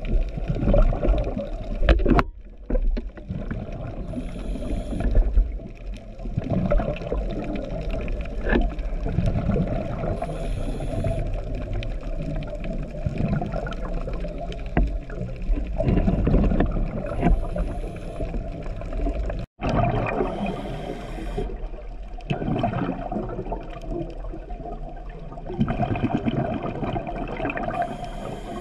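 Underwater sound heard through a camera housing: low, rumbling water and bubble noise in surges, with a short, high hiss about every six seconds, typical of a scuba diver breathing through a regulator.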